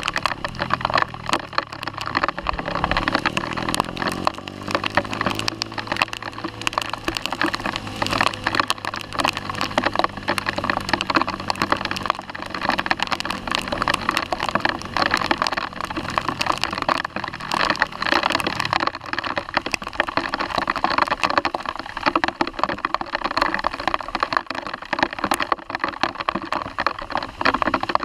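Heavy rain striking the camera and its microphone as a dense run of rapid clicks, over the Sinnis Apache 125's single-cylinder engine, which rises in pitch a few seconds in as the bike accelerates.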